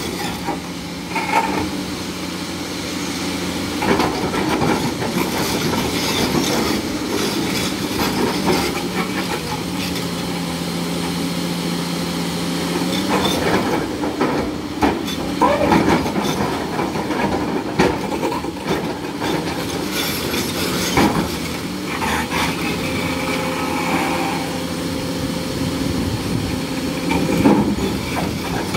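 Kobelco hydraulic crawler excavator's diesel engine running under load, its note shifting in pitch as the boom and bucket work, with scattered knocks and scraping from large cut stone blocks being pushed and tipped over; the loudest knock comes near the end as a block tumbles.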